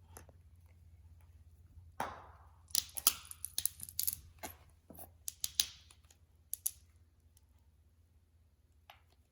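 Slime being worked by hand, giving a quick run of sticky clicks and crackling pops that lasts a few seconds, with a single faint click near the end.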